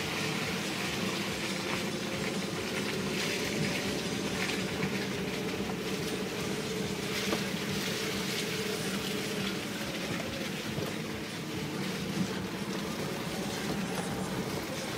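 A Lada Niva 4x4's engine running steadily under load, heard from inside the cabin, with scattered clicks and knocks from the body and suspension as it drives slowly over a rutted, muddy dirt track.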